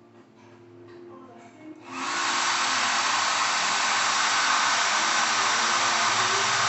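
Mondial Max Travel portable hair dryer switched on about two seconds in, then blowing at a steady, even level.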